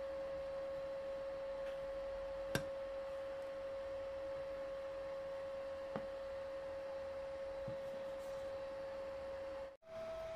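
A steady pure tone with a faint overtone, broken by two light clicks. Near the end it drops out for a moment and comes back at a slightly higher pitch.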